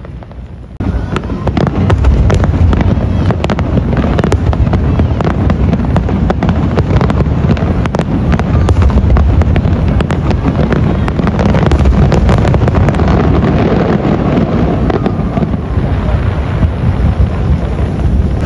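Aerial fireworks display: a rapid barrage of shells bursting, the booms running together into a continuous rumble dotted with sharp cracks. It starts suddenly about a second in.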